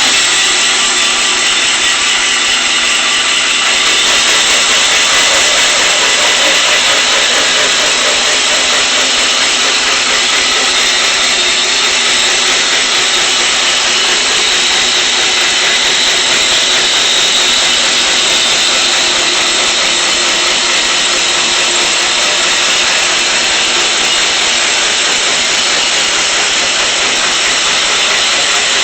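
Homemade band sawmill running steadily and loudly, its motor driving the band blade through a dried black walnut log as it cuts the first board.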